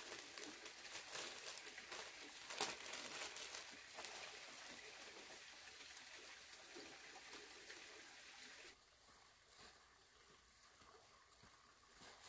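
Faint rustling and crinkling of clear plastic sleeves around potted strawberry plants as the pots are handled and lifted, with a sharper knock about two and a half seconds in. About two-thirds of the way through the sound drops to a much quieter background.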